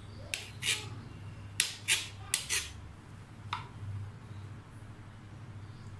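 Kitchen knife sawing through the crust of a loaf of sliced bread on a cutting board: about half a dozen short rasping strokes over the first few seconds, some ending in a sharp click of the blade on the board.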